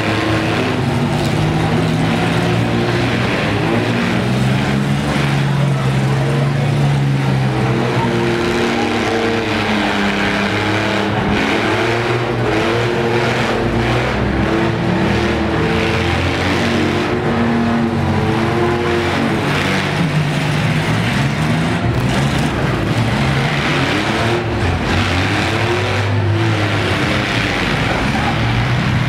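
Engines of several demolition derby mini trucks and vans revving hard, their pitch rising and falling again and again, with a few sharp knocks of the cars colliding.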